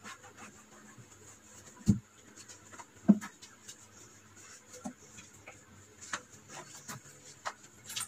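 Wet sponge rubbing over the outside of a refrigerator door, with scattered light knocks and two louder thumps about two and three seconds in.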